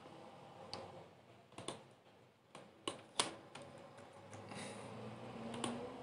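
Computer keyboard keys and mouse buttons clicking faintly as numbers are typed into a dialog box. There are about half a dozen separate sharp clicks, the loudest about three seconds in.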